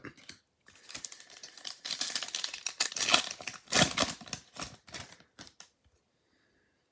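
Foil wrapper of a Topps baseball-card pack crinkling and tearing as it is ripped open, with quick rustles and clicks of the cards being handled. The rustling stops about five and a half seconds in.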